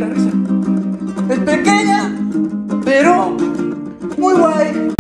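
Acoustic guitar strumming sustained chords while a man sings a wordless, wavering melody over it.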